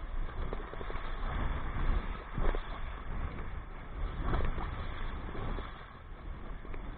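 Strong wind buffeting the microphone: a rough, fluctuating rumble that swells in gusts about two and a half and four and a half seconds in.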